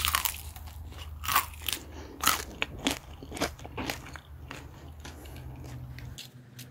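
Crisp, thick flour coating of deep-fried chicken wings crunching as it is bitten and broken apart: a string of sharp crunches, loudest near the start and at about one and two seconds in. A low steady hum runs underneath until about six seconds in.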